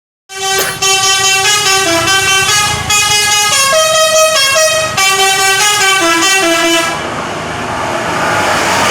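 Bus telolet horn playing a quick melody of multi-tone notes, the notes changing every few tenths of a second, for about seven seconds. It then stops, and a bus engine's noise rises.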